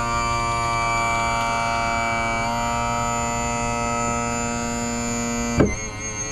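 Background music: sustained synthesizer chords that change about two and a half seconds in and again, with an abrupt cut, near the end.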